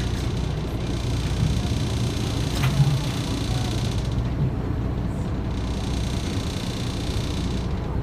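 Steady low engine rumble of a small boat under way, with wind and water noise over the microphone and one small knock a little under three seconds in.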